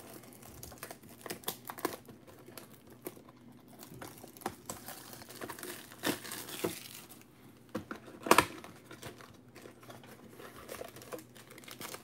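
Plastic shrink-wrap crinkling and tearing as it is peeled off a sealed trading card box, with scattered rustles and clicks of the cardboard box being handled. A sharp snap about eight seconds in is the loudest sound.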